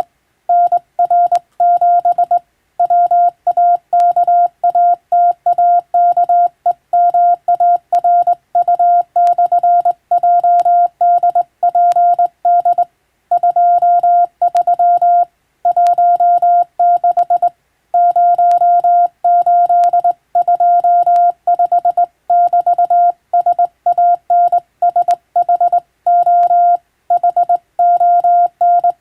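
Morse code (CW) as a steady tone of about 700 Hz, keyed on and off in fast runs of dots and dashes with short pauses between words.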